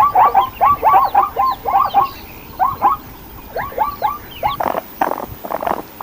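Animal calls: quick runs of short squeaky notes, each rising and falling in pitch, then about four and a half seconds in a run of rough, hoarse pulses.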